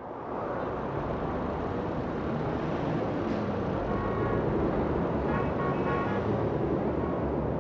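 Steady noise of heavy road traffic in a jam, with car horns honking briefly about four seconds in and again a second or two later.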